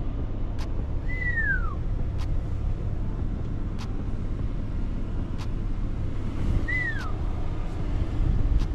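Steady low rumble of a vehicle, with faint regular ticks about every one and a half seconds and two short whistled notes that fall in pitch, about a second in and again near the end.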